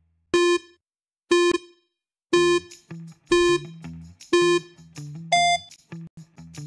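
Countdown timer beeping once a second over soft background music: five identical short beeps, then a sixth higher-pitched beep, the quiz timer's signal that time is up.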